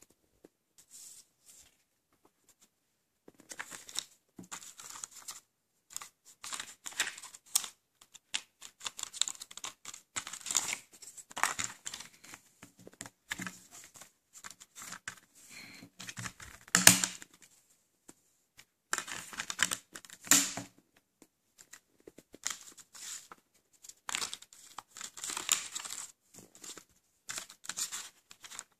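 Hands handling an open plastic Blu-ray case and its paper insert: irregular rustling and crinkling with sharp plastic clicks, the loudest click about 17 seconds in.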